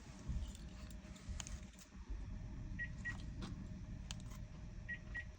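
Two pairs of short, high electronic beeps, the pairs about two seconds apart, with scattered light clicks over a low steady hum, heard while the Jaguar XF's modules are being reprogrammed.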